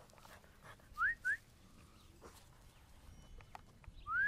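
Someone whistling: two short, quick rising whistles about a second in, then a longer rising whistle near the end.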